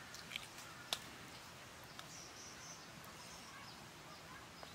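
Quiet forest background with faint high bird chirps, and two sharp clicks within the first second as shell is picked off a cooked egg by hand.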